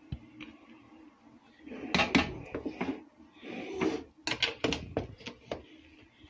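A spoon scraping through rice and knocking against the side of a large aluminium pot as layered biryani is turned over, in two bouts of scrapes and clinks, the first about two seconds in and the second from about three and a half to five and a half seconds in.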